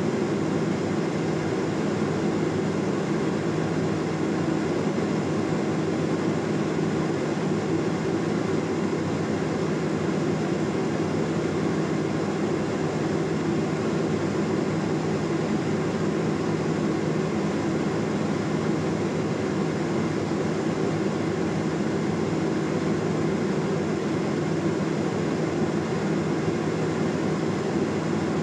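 Cessna P210 Centurion's engine and propeller droning steadily, heard inside the cabin in flight.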